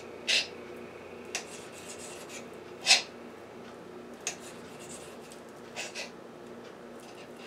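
Kitchen knife slicing raw chicken breast into strips: the blade rasps through the meat, with about six sharp taps of the knife against the cutting surface, the loudest about three seconds in. A faint steady hum runs underneath.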